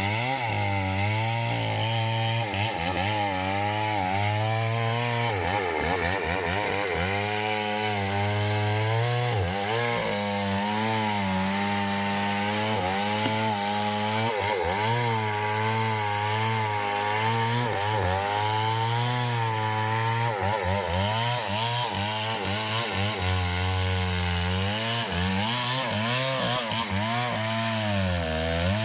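Mini chainsaw running under load as it cuts into a kapok tree trunk, its engine note dipping and recovering over and over as the chain bites into the wood.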